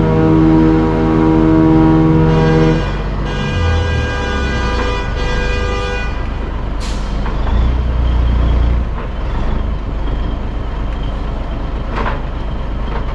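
A 1984 Peterbilt 362 cabover semi's Caterpillar diesel engine running, with a steady drone over a low rumble. About seven seconds in there is a short, sharp air hiss, and a click near the end.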